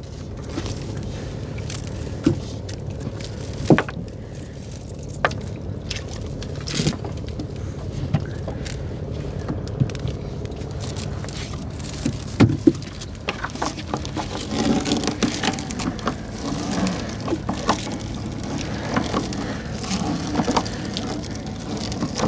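Small motorboat's engine running steadily, with scattered knocks and clatters of gear handled on board. From about two-thirds of the way through, a fuller, rougher sound joins in.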